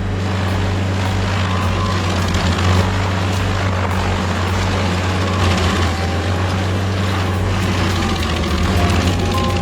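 A heavy machine's engine running steadily with a low, even drone.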